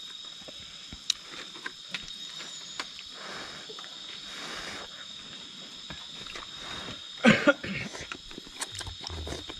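Instant noodles eaten from a metal pot: a fork clinks now and then on the pot between soft slurping and chewing, with one louder slurp about seven seconds in. Insects chirp steadily at a high pitch in the background.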